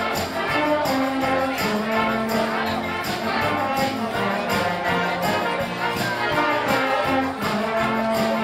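Brass band music: trumpets and trombones playing held notes over percussion keeping a steady beat.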